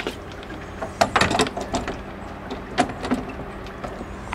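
Knocks and clatter of a Tohatsu 3.5 outboard motor's clamp bracket being set onto an inflatable dinghy's transom while the motor is not running. There is a quick cluster of knocks about a second in and a few more single knocks later.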